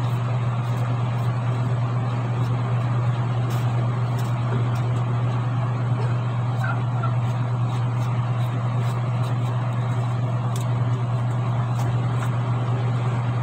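A steady low hum with an even whirring haze, like a running appliance motor, unchanged throughout, with a few faint ticks and scrapes from a knife peeling a bottle gourd.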